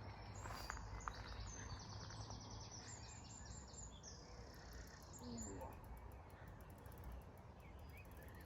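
Faint lakeside ambience: a low rumble of wind, with a small bird's high, quickly repeated chirps over the first five seconds or so.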